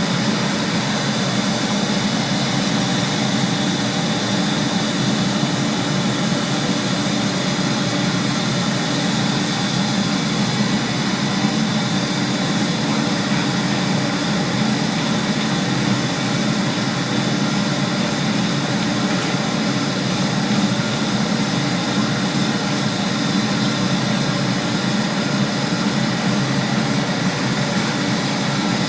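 Steam boiler plant running: a steady, unchanging roar of the boiler equipment.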